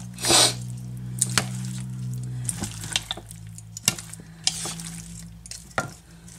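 Metal tongs tossing raw seasoned chicken wings in a bowl. There is a loud wet slap about half a second in, then scattered clicks of the tongs and soft squelches of the meat.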